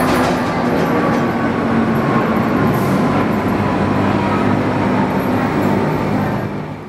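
Miami Metrorail Budd rapid transit train running on the line, a steady rumble that fades out near the end.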